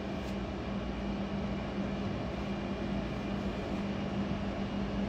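Steady background hum and hiss of room noise, with one even low tone, picked up by a phone microphone between speech.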